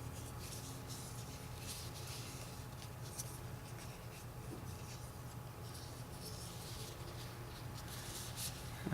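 Faint rubbing and small scratching noises of hands working oil over the turbo pedestal's actuator piston and bore, over a steady low hum.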